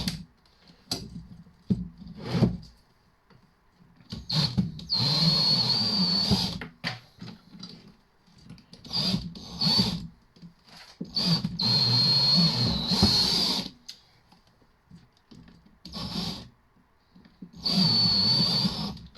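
Cordless battery drill driving a cable-stripping tool, run in bursts of about two seconds as copper cable is fed through, with a steady high whine over a low motor hum. Short starts and handling knocks come between the runs.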